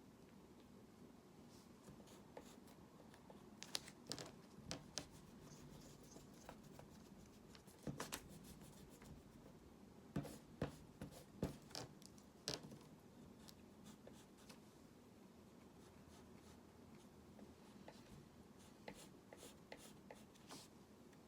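Faint scratching and tapping of a drawing tool on a surface during sketching: scattered short strokes and clicks in small clusters over a quiet room.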